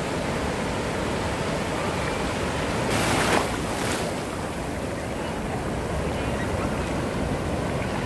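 Ocean surf washing onto a beach, with one wave breaking about three seconds in: a louder, hissing crash that fades after about a second into the steady rush of water.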